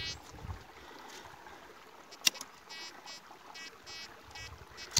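Tianxun metal detector sounding its target signal in short repeated buzzing beeps as the coil is swept over a dug-out hole in river rock, the signal still present after digging. A sharp knock about two seconds in, over a faint background of running water.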